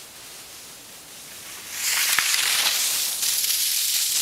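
Loud, steady hiss of a rider sliding belly-down over packed snow, coming in abruptly about two seconds in, with a few faint crunchy clicks.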